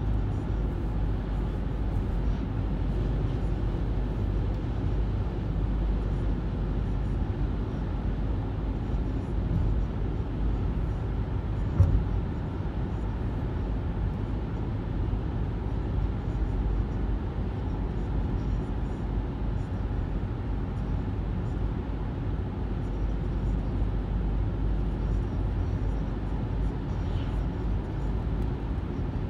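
Steady low road and engine rumble inside a car's cabin while driving on a paved road, with one brief thump about twelve seconds in.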